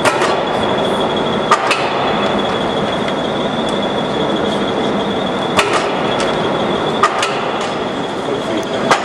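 Power squaring shear running idle: a steady mechanical noise with a constant high whine, broken by a few sharp clicks and knocks.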